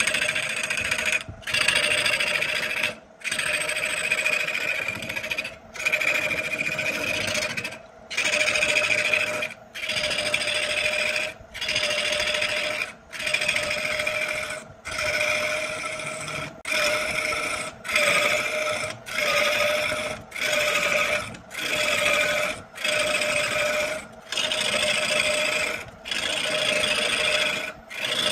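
A power tool working wood, its motor running with a steady whine under a rasping cutting noise, broken by brief sharp gaps about every second and a half.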